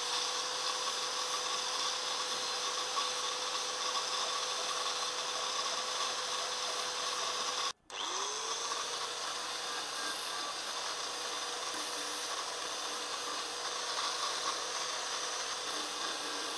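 Angle grinder with an abrasive disc running at speed, a steady whine under a gritty grinding hiss as small steel pieces are deburred and cleaned to bare metal. It cuts off abruptly just before halfway and spins back up to speed.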